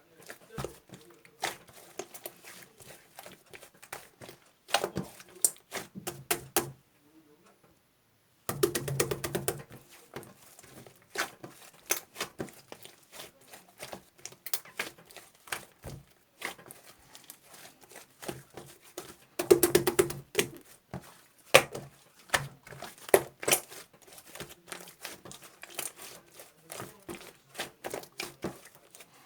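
Irregular sharp clicks and crackles with some crinkling, close to the microphone.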